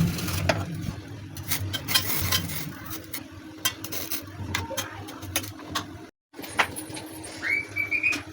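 Kitchen utensils clinking and scraping against cookware during food preparation, in a string of irregular sharp clicks and knocks.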